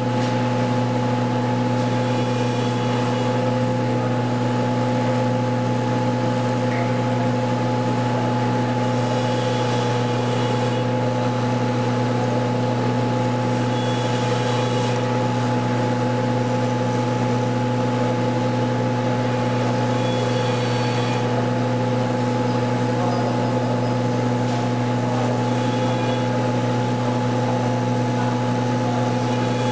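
A small motor running steadily, with scratchy grinding noises coming and going, as of a power tool cutting into the part being taken apart.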